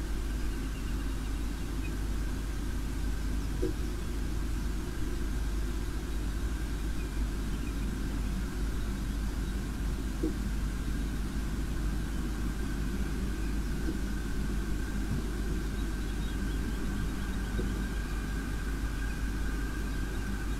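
A steady low rumble with a faint, steady high whine above it, unchanging throughout; no bird calls stand out.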